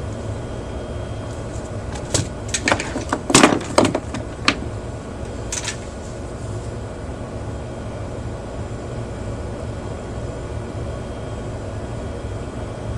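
A quick run of sharp clicks and knocks, handling noise on the workbench, about two seconds in and lasting a couple of seconds, with one more click a little later, over a steady low hum.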